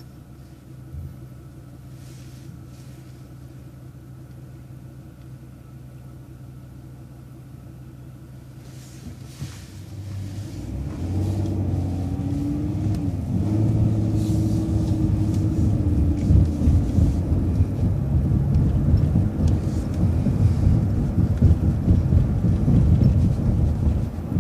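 Transit bus engine idling with a steady low hum while stopped at a stop sign. About ten seconds in, the bus pulls away and the engine note rises and changes pitch as it accelerates, settling into a loud, uneven low rumble.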